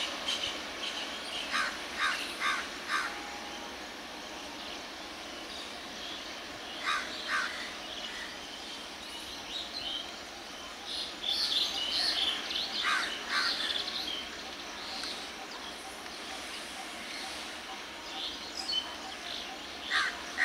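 Crows cawing in short runs of two to four calls, repeated several times, with smaller birds chirping in between over a steady background hum.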